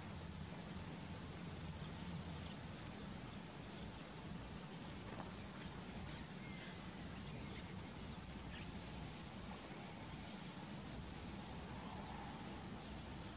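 Faint, scattered short chirps of small birds, with one brief thin whistle about halfway through, over a steady background hiss and low hum.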